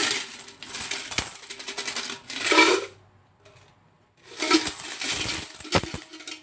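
Coins clattering as they are poured out of a cylindrical coin container into a plastic bowl full of coins, in two bouts with a short pause between them.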